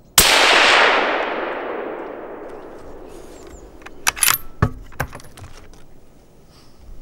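A single shot from a .308 Winchester hunting rifle: a sharp crack followed by an echo rolling away over about three seconds. About four seconds in come a few sharp metallic clicks and clinks.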